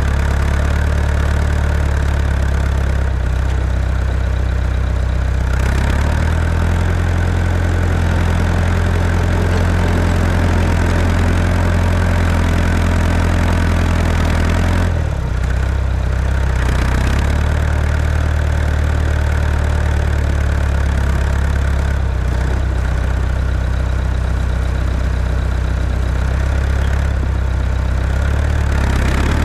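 Tractor engine running with a deep, steady drone while plowing compacted snow and ice on a road. Its engine speed shifts several times, with a brief dip about halfway through.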